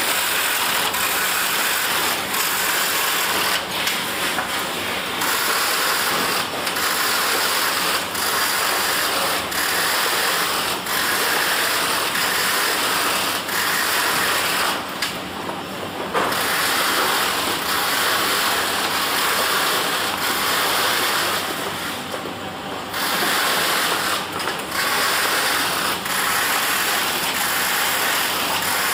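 Small carton tape-sealing machine and its conveyor line running: a steady mechanical clatter of drive belts, rollers and gears, briefly quieter at a few moments.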